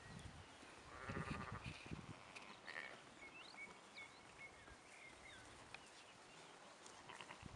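Sheep in a flock bleating: one wavering bleat about a second in, and a shorter call near three seconds.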